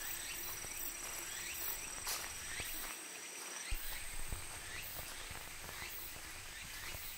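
Outdoor chorus of calling insects or frogs: a short rising chirp repeating about twice a second over an even hiss and a thin steady high whine, with a few soft knocks around the middle.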